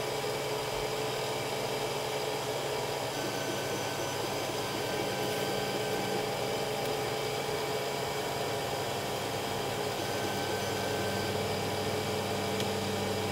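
Steady hum and whine of a small stepper motor, the Mosaic Palette+ driving filament through the feed tube, with a faint higher tone coming and going twice.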